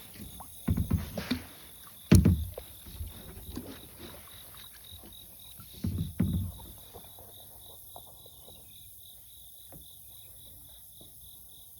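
Kayak paddle strokes with heavy low thumps of the paddle and hull, loudest just after two seconds in and again around six seconds in, then only small ticks. Insects chirp throughout in a steady high pulsing trill.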